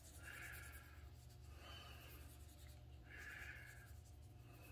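Faint, soft scrubbing strokes, about four of them, as a small brush works dark wood stain over the sanded, yellow-painted surface of a piece of Baltic birch. A low, steady hum sits under the strokes.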